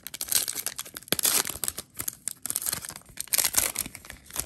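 Foil wrapper of a Donruss Optic football card pack being torn open and crinkled by hand, in several loud bursts of crinkling that stop abruptly near the end.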